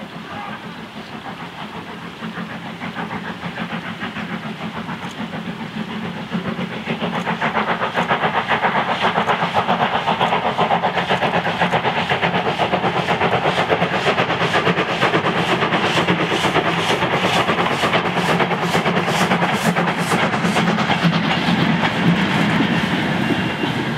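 Lancashire & Yorkshire 0-6-0 saddle tank steam locomotive working hard as it approaches and passes, its exhaust beating in a quick, even rhythm that grows louder over the first several seconds. Near the end its short train of goods wagons rolls by.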